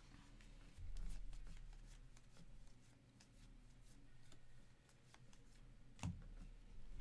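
Faint rustling and clicking of glossy Bowman Chrome baseball cards as a stack is thumbed through and cards are slid one behind another, with a louder tap about six seconds in.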